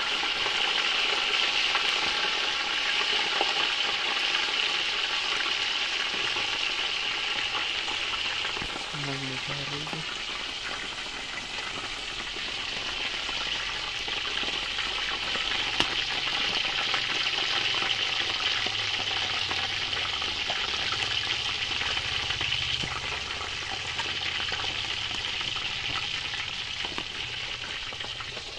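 Whole tilapia (mojarras) frying in hot oil in a metal pot over a wood fire: a steady sizzle with fine crackling.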